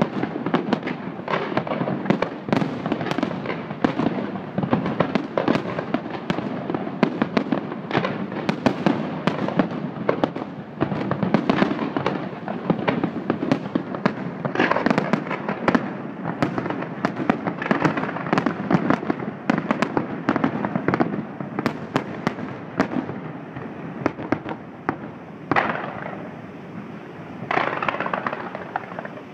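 Fireworks display: a dense, continuous barrage of rapid bangs and crackling from many shells. It thins out in the last few seconds, apart from two last louder flurries of crackle near the end.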